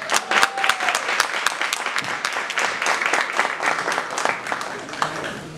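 Audience applauding: many hands clapping in a dense patter that thins out and fades toward the end.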